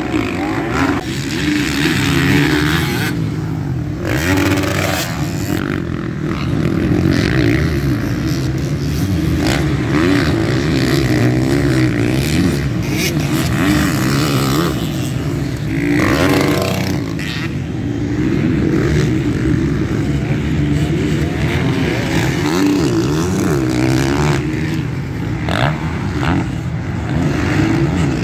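Off-road racing dirt bike engines running hard, the pitch rising and falling continuously as the throttle opens and closes.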